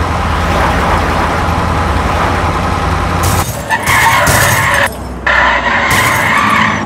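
Dubbed vehicle sound effects: an engine running steadily, then from about three seconds in, crashing noises and tyre squeals in two long stretches.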